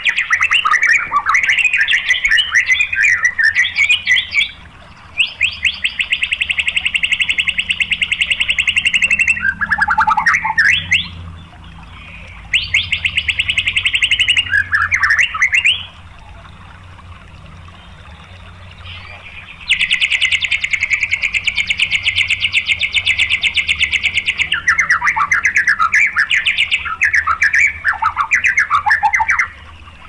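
White-rumped shama (murai batu) singing: quick, varied whistled phrases broken by three long, very fast rattling trills, the 'tembakan' bursts, the longest lasting about five seconds. A pause of a few seconds falls just past the middle.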